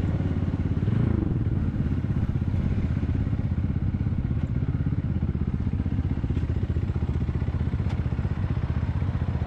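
250cc engine of a KTNS RA2 Cyclone cruiser motorcycle running under way, heard from the rider's seat. Its pitch briefly rises and falls about a second in, then climbs gradually through the second half as the revs build.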